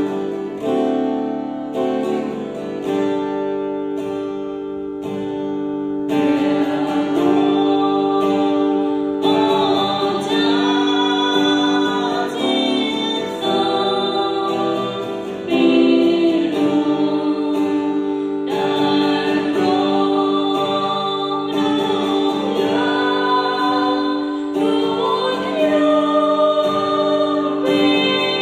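Christian worship song sung in Khmer, led by a woman's voice through a microphone over sustained instrumental accompaniment. The singing comes in stronger about six seconds in.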